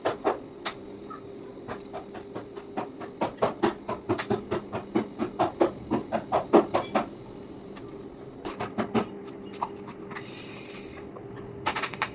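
TIG welding: a steady hum from the welder and arc, with runs of sharp clicks several times a second that pause briefly past the middle, and a short hiss near the end.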